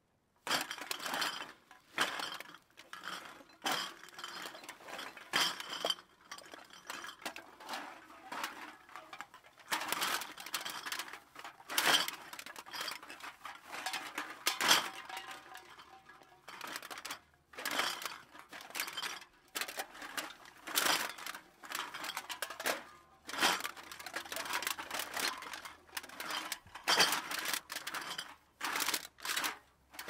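Empty glass bottles clinking and knocking against each other, heard from a distance, in irregular clusters of sharp clinks with brief gaps between.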